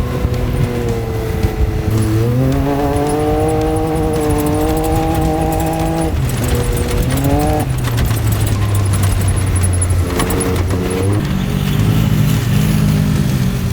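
UTV engine revving under acceleration: its pitch climbs about two seconds in and holds, falls away near the middle, rises briefly again, then settles lower.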